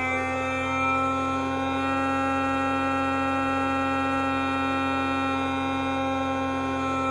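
Homemade electronic imitation of an electric train's IGBT VVVF inverter and induction traction motor (JR East E531/E233-3000 series style) running in synchronous pulse mode: a steady cluster of whining tones at nearly level pitch.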